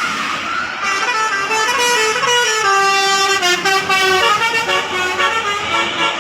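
Bus 'telolet' horn: a Basuri multi-tone musical air horn playing a quick melody of stepping notes, over the noise of road traffic.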